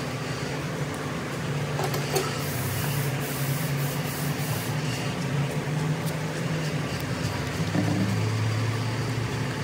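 Steady low mechanical hum over a hiss, with the hum dropping slightly in pitch near the end.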